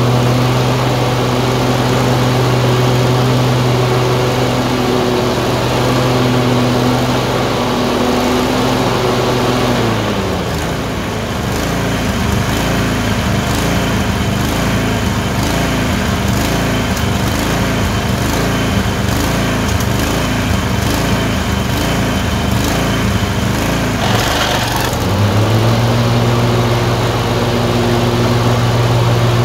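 Tecumseh 22 HP twin-cylinder engine running at a steady speed. About ten seconds in it sags and runs rough with a regular pulse about once a second, then picks back up to steady running near the end. This is the surging from a misfire that alternates between the two cylinders.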